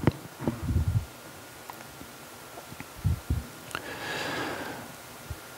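Soft low knocks and thumps close to the microphone, a few in the first second and two about three seconds in. Then a breath-like rush of about a second, and a faint steady high tone underneath throughout.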